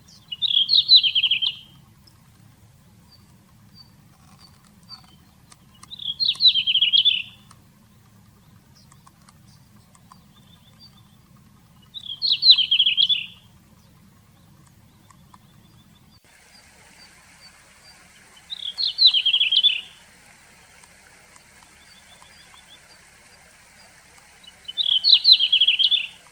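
Red-flanked bluetail singing: five short warbling phrases, each about a second and a half long, repeated about every six seconds.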